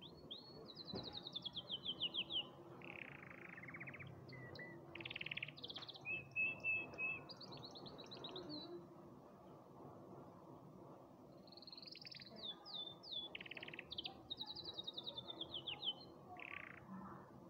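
Domestic canary singing: two bouts of song made of rapid trills, buzzy rolls and a short held whistle, with a pause of about two seconds between them.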